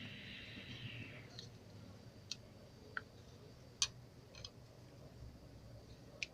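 Homemade slime being handled: a soft hiss at first, then a handful of faint, scattered sticky clicks as the slime is pulled and pressed. The slime is still sticky.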